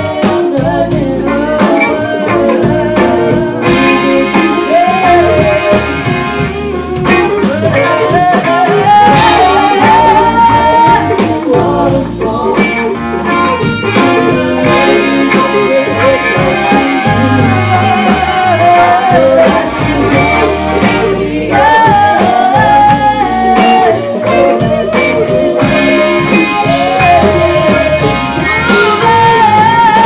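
Live band playing a pop-R&B cover, with female lead and backing vocals over electric guitar, keyboard, congas and drum kit.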